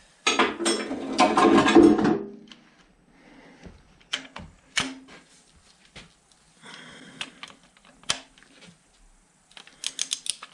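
Hand tools clicking and clattering on the main bearing cap bolts of a Fordson Major engine block as they are torqued up: a loud, dense run of clicks over the first two seconds, scattered single clicks after, and a quick run of wrench ratchet clicks near the end.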